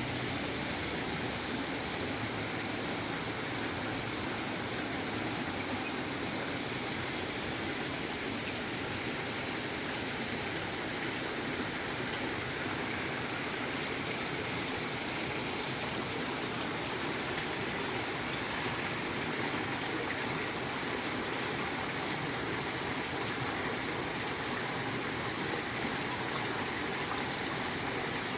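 Waterfall: a steady, unbroken rush of falling and flowing water.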